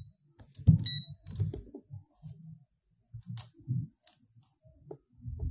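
Digital multimeter giving a short high beep about a second in as its rotary dial is switched to DC volts, with scattered clicks and low knocks from the dial and handling on the bench.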